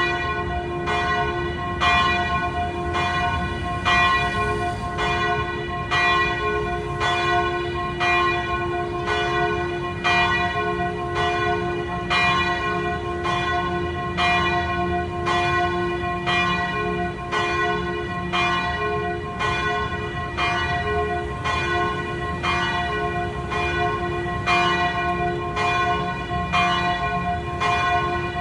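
Church bell ringing in a steady, even rhythm of quick strokes, each stroke ringing on into the next.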